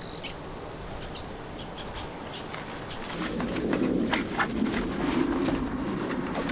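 A steady, high-pitched chorus of insects. Over the second half, rustling and light clicks as the tent's canvas door flap is handled.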